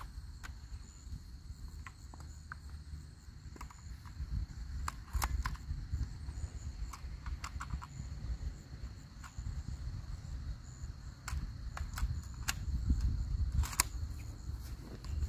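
Outdoor ambience: a low wind rumble on the microphone, a steady high insect drone, and scattered small clicks and taps from handling the air rifle. No shot is fired.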